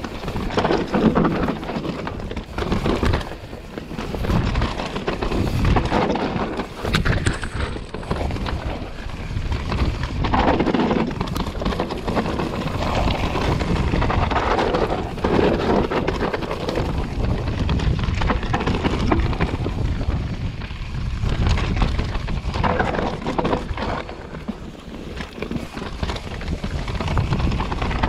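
Enduro mountain bike riding fast down a rough dirt and rock trail: tyres rumbling and crunching over gravel and roots, the bike rattling over bumps, with wind noise on the camera microphone. The level rises and falls with the terrain.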